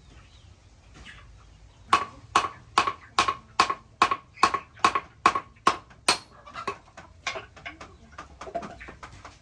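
Blacksmith's hand hammer striking metal on the anvil, a steady run of ringing blows about two and a half a second. The blows start about two seconds in and grow lighter toward the end.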